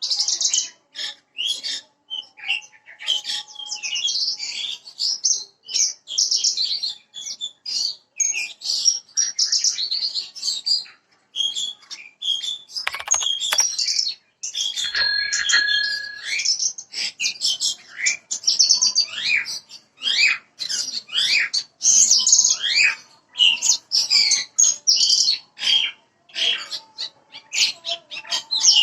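Branjangan (bush lark) of the 'parva' type singing a fast, unbroken run of varied chirps, trills and short whistles. This is a lure song ('pancingan') played to prompt caged larks to start singing.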